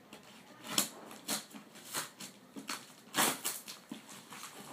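Cardboard shipping box being cut with a knife and torn open by hand: irregular ripping and scraping strokes, the loudest just under a second in and again a little past three seconds in.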